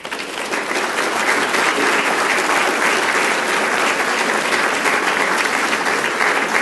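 Audience applauding: many people clapping, swelling within the first second and then holding steady.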